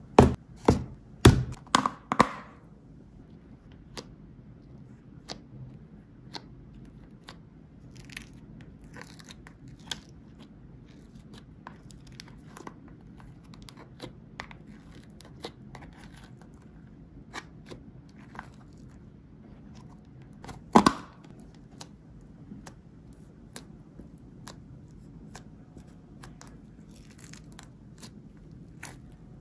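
Clear plastic tub lids snapping and clicking open, then quiet sticky crackling and squishing as fingers poke and press fluffy slime in the tubs, with one louder knock later on.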